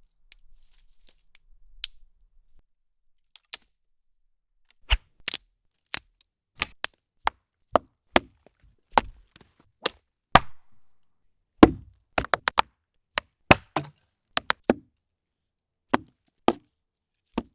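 Wooden branches and twigs snapping and cracking: faint rustling at first, then from about five seconds in a quick, irregular series of sharp snaps.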